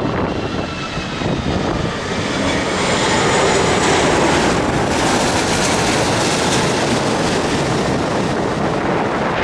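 Jet airliner passing low overhead on landing approach: a faint high engine whine, then a loud rush of engine noise that swells over the first few seconds and holds.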